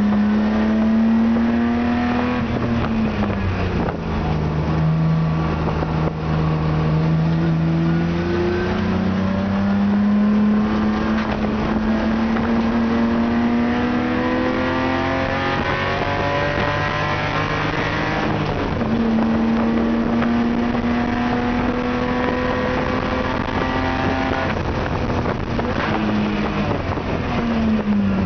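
Spec E30 BMW race car's 2.5-litre straight-six at speed on track, heard from inside the caged cabin. The revs dip early, climb slowly for about ten seconds, drop sharply once about 18 seconds in on an upshift, hold steady, then fall away near the end.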